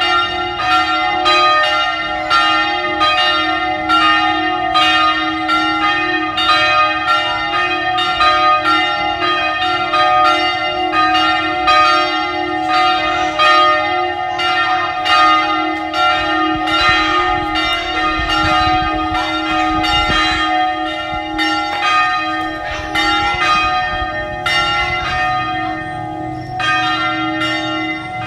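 Three bronze church bells, cast by the Paccard foundry in France and tuned to F, G and A, ringing together: rapid overlapping strokes, about two to three a second, over a steady ringing hum.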